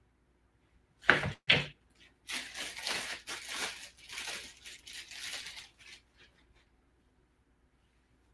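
Two knocks about half a second apart, then several seconds of plastic wrapping crinkling and tearing as a small part is unwrapped by hand.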